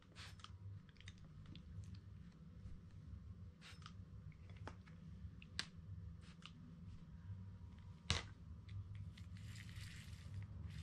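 Trigger spray bottle of reel cleaner spritzing in several short, faint hisses, one at a time, over a low steady hum. A sharp click about eight seconds in, then cloth rustling near the end.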